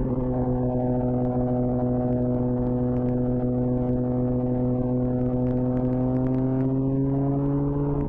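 2004 Honda CBR1000RR Fireblade's inline-four running through a Jardine titanium exhaust, cruising in gear. The engine note is steady and creeps slowly higher in pitch.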